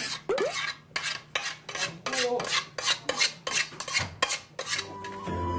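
Glutinous rice paste being scraped out of a nonstick pot into a plastic container: quick repeated scraping strokes, about three a second, with a few short squeaks. Background music comes in near the end.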